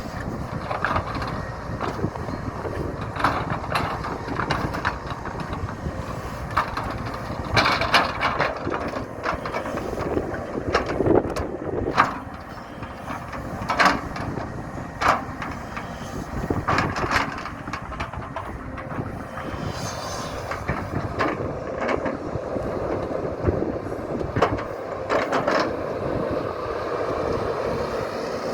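JCB JS175W wheeled excavator working, its diesel engine running steadily under load, with irregular sharp knocks and scrapes from the bucket and ground as it grades soil.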